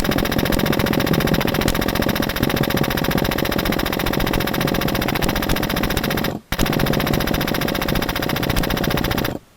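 HPA-powered airsoft Stoner 96 light machine gun replica firing full-auto at about 20 rounds a second. One long burst breaks off briefly about six seconds in, then a second burst of about three seconds follows.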